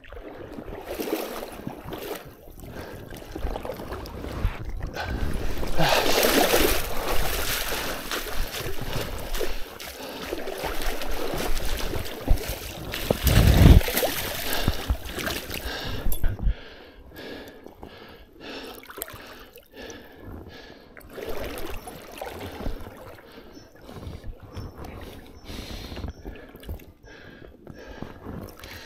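Water splashing and moving, loudest through the middle stretch with a heavy low bump about halfway through, then quieter.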